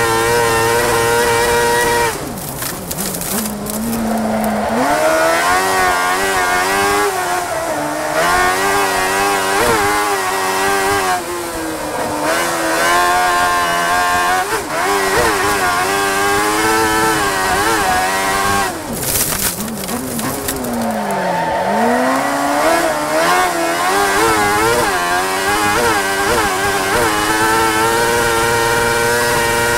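A Speedcar Xtreme race car's high-revving engine, heard from inside the cockpit. It holds a steady high note, drops sharply about two seconds in as the driver lifts off, then rises and falls with gear changes through the corners. There is a brief burst of hissing noise in the middle, and the engine climbs back to a steady high note near the end.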